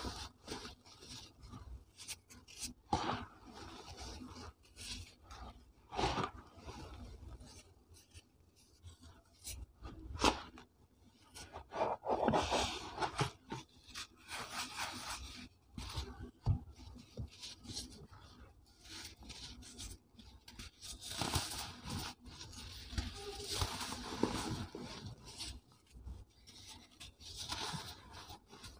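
Hands crushing and rubbing a soft, dyed cement block over loose powder. It makes irregular dry crunches and scrapes as the block breaks apart and crumbs fall.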